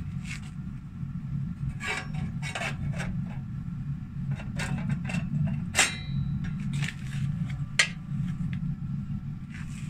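Scattered light knocks and clicks over a steady low rumble. About six seconds in comes a short metallic clink that rings briefly, and a sharp knock near eight seconds is the loudest.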